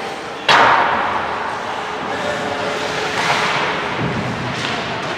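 A single sharp crack from the hockey play about half a second in, echoing through the ice arena, followed by a steady background of rink and crowd noise.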